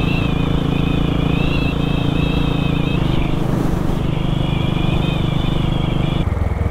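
Royal Enfield Bullet single-cylinder engine pulling hard on the road through an aftermarket exhaust, with wind rushing past. Its note steps down about three seconds in and again near the end.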